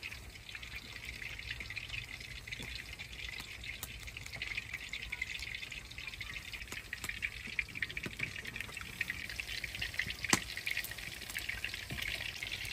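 Hot oil sizzling in a frying pan, a steady fine crackle with many small pops, and one sharper click about ten seconds in.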